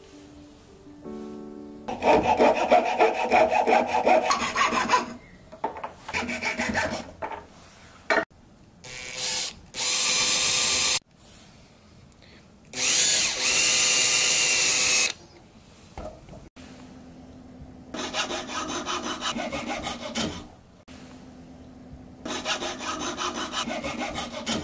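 Hand thread saw cutting a cedar block in quick rhythmic strokes, in several bouts. In between, a Makita XPH10Z cordless drill runs steadily twice for a second or two at a time, boring a hole through the wood.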